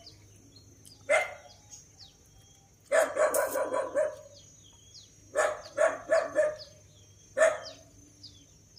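A dog barking in short bouts: a single bark about a second in, quick runs of barks around three seconds and again around five to six seconds, and one more near the end. Faint short bird chirps come between the barks.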